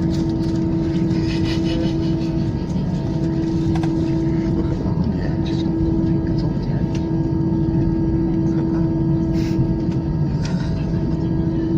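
Airliner engines droning steadily as heard from inside the passenger cabin: a low, even rumble with a constant hum that drops out briefly a few times.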